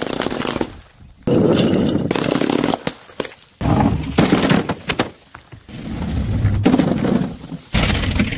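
A run of short smashing and crushing sounds: thuds, crunching and breaking, in several separate bursts that each start and stop abruptly, with crackling clicks in the middle.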